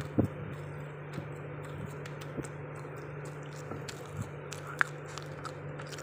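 Chewing and small wet mouth clicks of someone eating soft black forest cake with whipped cream, over a steady low hum. There is a short knock just after the start.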